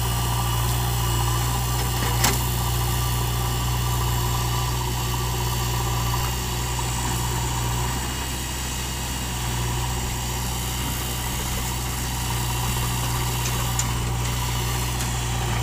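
Diesel engines of a Mahindra 595 DI tractor and a JCB 3DX backhoe loader running steadily at idle, a constant low engine hum. One short sharp click a little over two seconds in.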